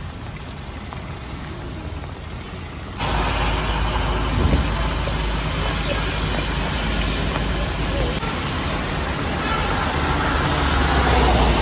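Steady outdoor hiss with a low rumble, stepping up louder about three seconds in and holding.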